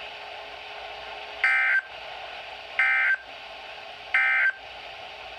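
EAS/SAME digital data tones: three short warbling bursts about a second apart. They are the end-of-message code that closes an emergency alert broadcast. Steady receiver hiss runs between the bursts.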